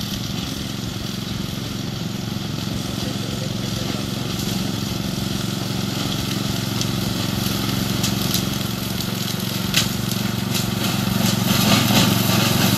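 Orec RM85B ride-on mower running under load as it cuts tall grass, its engine getting steadily louder as it drives closer. A few sharp ticks come through in the second half.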